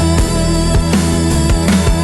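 Psychedelic rock instrumental passage: sustained electric guitar over bass and steady drum hits, with no vocals.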